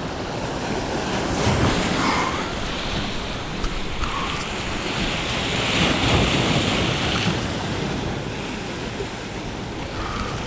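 Sea waves breaking and washing over shoreline rocks, with wind buffeting the microphone; the surf swells louder in the middle.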